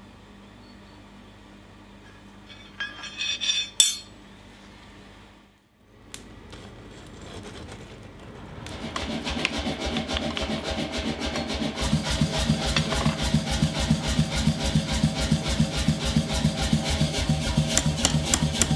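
Mechanical power hammer pounding hot steel in a rapid run of blows, several a second, starting about halfway through and getting heavier toward the end. Earlier there is a brief metal scrape, about three seconds in.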